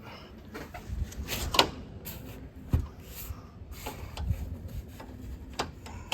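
A few sharp knocks and clicks with rubbing and scraping sounds in between, the loudest knocks about one and a half and near three seconds in.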